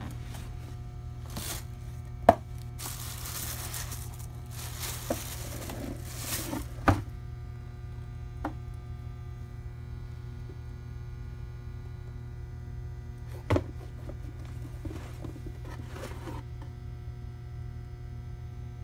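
Cardboard shoe box being opened and the sneakers handled: three sharp knocks of cardboard, at about 2, 7 and 13.5 seconds in, and stretches of paper rustling, over a steady low hum.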